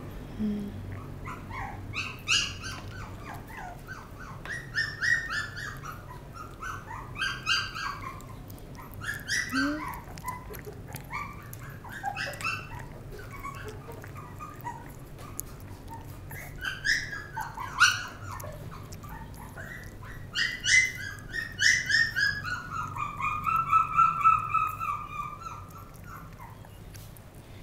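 Young puppy, about 25 days old, squealing and whining in short high-pitched cries while being fed milk from a syringe, with one longer drawn-out whine near the end.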